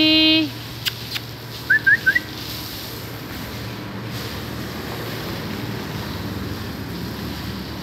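Steady hiss of water from a garden hose spraying onto a wet marble floor. About a second in there are two sharp clicks, and just after them three quick, rising chirp-like whistles.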